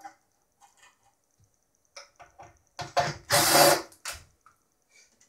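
DeWalt cordless impact driver running in one short burst a little over three seconds in, backing a screw out of the mixer's case, with a few light clicks of handling before and after.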